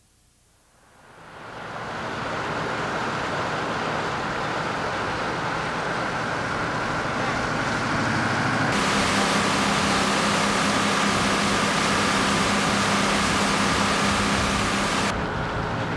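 After about a second of near silence, the steady drone of a fishing boat's engine fades in under a hiss of wind and water, growing louder and brighter about nine seconds in and dropping back near the end.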